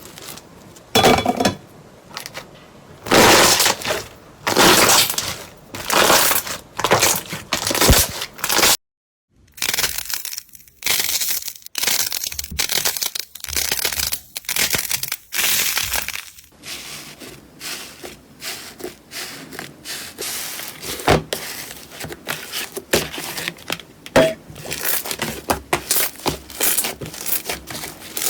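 Crunchy slime being squeezed and crushed by hand, crackling and crunching in repeated squeezes of about a second each, with a brief silent break about nine seconds in.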